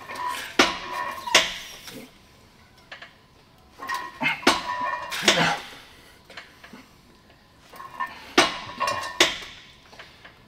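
Metal gym weights clanking in three bursts of knocks about four seconds apart, in time with the repetitions of a lateral-raise set.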